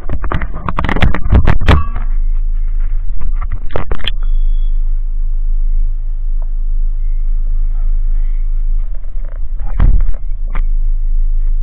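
Steady low rumble of a car's engine and tyres heard inside the cabin as it creeps along a rough lane, with a cluster of sharp knocks and rattles in the first two seconds, another knock about four seconds in followed by a brief high beep, and one more knock around ten seconds in.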